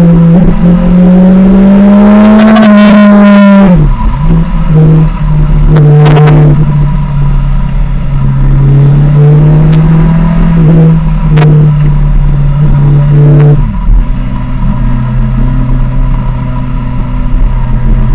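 Kawasaki Ninja 1000's inline-four engine running through a Vanessa & Hyman aftermarket exhaust under way, recorded very loud and distorted in the low end by a Yi action camera whose microphone was loose in its housing. The engine note climbs under throttle, drops off about four seconds in, holds a steady cruise, and drops again near the end, with a few brief clicks in between.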